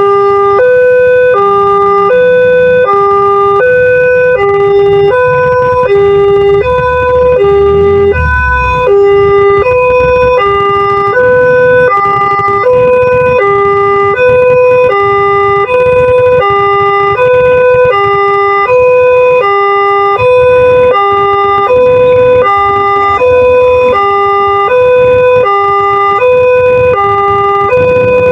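Railway level-crossing warning siren of the Multec type, alternating steadily between a higher and a lower note at about one high-low cycle per second, a little fast. A low rumble runs beneath it and swells about eight seconds in.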